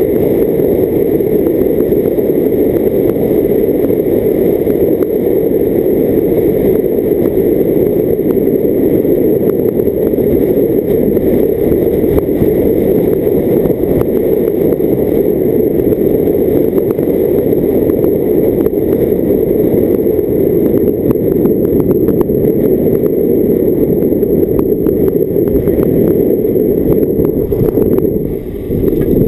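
Steady loud rush of wind and road noise from a car driving, picked up by a camera mounted outside on the bonnet. It dips briefly near the end.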